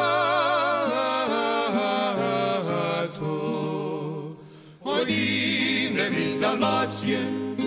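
Music with a melody line held with vibrato. It drops away briefly a little past halfway, then comes back.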